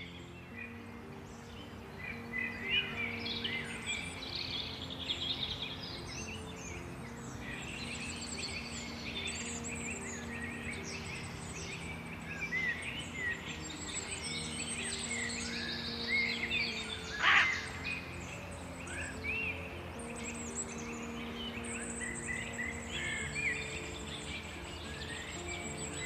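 Many small birds chirping and trilling, with one louder falling call about two-thirds of the way through, over soft ambient music of long held low notes.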